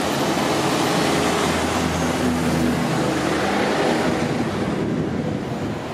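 Street traffic: a motor vehicle's engine running close by over a steady wash of road noise, its low hum dropping away about three seconds in.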